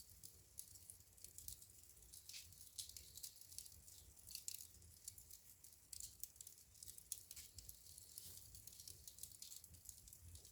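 Wood fire in a fireplace, crackling and popping softly with many small irregular snaps over a low rumble.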